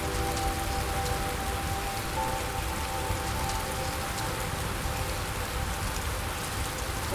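Steady rain falling with scattered drips, under soft held notes of calm background music whose chord changes about two seconds in.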